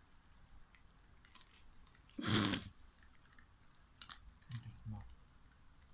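Australian Kelpie licking and chewing food from a small cup held in a hand: scattered mouth clicks and smacks, with one louder, longer burst of noise a little over two seconds in.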